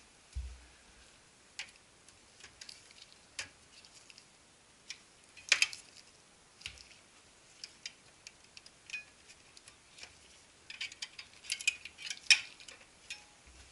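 Irregular clicks and light taps of hard plastic and metal parts being handled, with a quick flurry about halfway through and another near the end.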